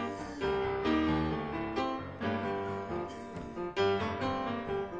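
Piano music: a flowing run of single notes and chords, several struck each second.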